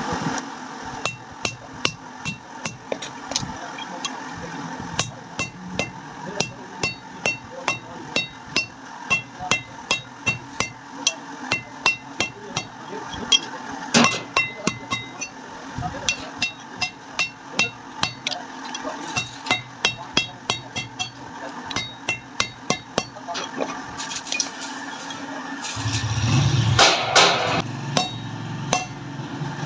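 Blacksmith's hammer striking metal on an anvil, about two blows a second, each blow leaving a short ringing note. Near the end a louder rush of noise comes in for a couple of seconds.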